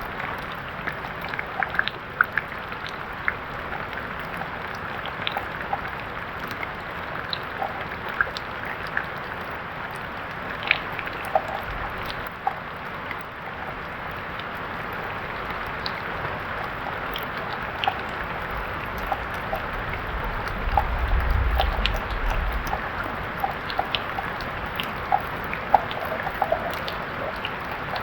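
Steady rain, a continuous hiss dotted with sharp ticks of individual drops striking. A low rumble rises for about two seconds past the middle.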